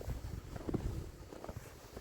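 Wind buffeting the microphone as an uneven low rumble, with a few short knocks around the middle.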